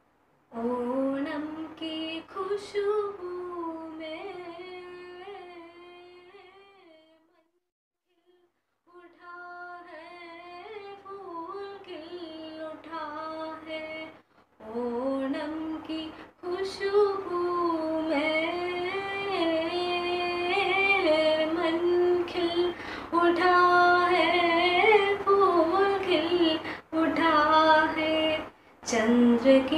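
A young girl singing a melody solo, holding long notes, with a short break about eight seconds in and another about halfway through.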